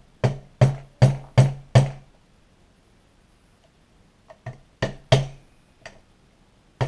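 Rubber mallet striking the handle of a screwdriver held on a woodruff key, driving it out of a 66cc two-stroke bicycle engine's sprocket shaft. There are five sharp knocks, about three a second, then a pause of about two seconds, then a few more knocks.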